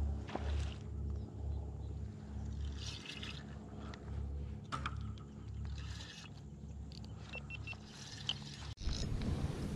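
Water lapping and trickling around a float tube, with a few short splashy bursts over a steady low rumble. The sound drops out briefly near the end.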